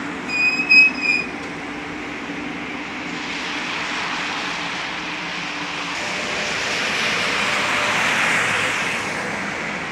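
Tatra KT8D5 articulated tram rolling along wet track in steady rain, with a low hum of its running gear that fades about six seconds in. A short high-pitched squeal sounds briefly about half a second in, and a wet hiss swells and falls near the end.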